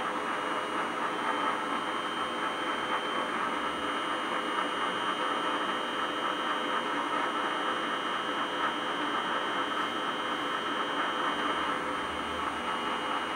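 Metal lathe running steadily under power, a constant mechanical whir with a thin steady whine, as the tool turns a small brass part held in the spinning chuck.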